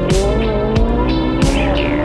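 Background music with a steady beat and a sliding, held melody line over it.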